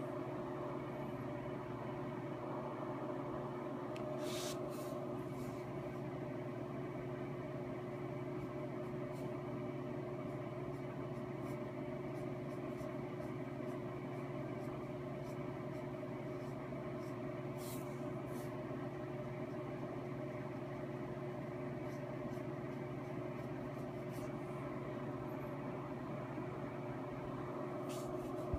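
Steady mechanical hum with a few held tones, with a few faint ticks now and then.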